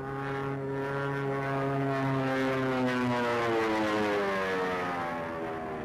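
Propeller-driven SBD Dauntless dive bomber's radial engine running overhead. The engine note holds steady, then falls in pitch from about two seconds in.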